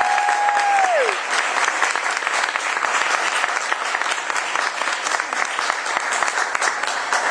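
Audience applauding steadily. A single long held high note sounds over the clapping and drops away about a second in.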